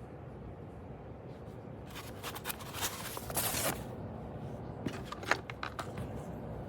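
Handling noises: a rattle of clicks and a short scraping rasp about two seconds in, then a quick run of sharp clicks, over a steady low hum.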